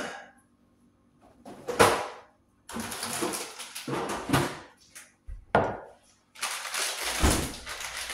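Kitchen handling noises: a plastic bag of shredded cheese crinkling and rustling in several bouts, with a few knocks and a dull thump between them.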